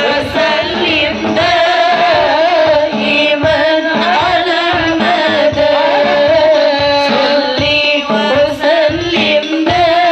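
Sholawat, Islamic devotional song, sung in an ornamented, wavering melody over a steady hand-drum beat.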